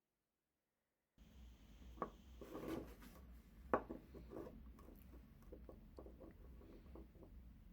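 Silence for about a second, then a low steady hum with scattered knocks and rubbing, as of objects being handled; the two sharpest knocks come about two and nearly four seconds in.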